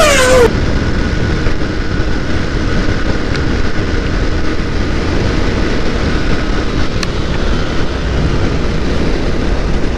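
Wind rushing over the microphone of a motorcycle at speed, with the Yamaha R15 V3's single-cylinder engine running under it. A short falling-pitch sound effect in the first half second.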